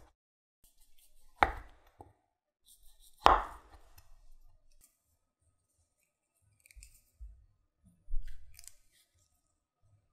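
A kitchen knife cutting down through a block of cheese and striking a wooden cutting board twice, about two seconds apart, the second cut the louder. Later come softer handling sounds as sausages are threaded onto wooden skewers.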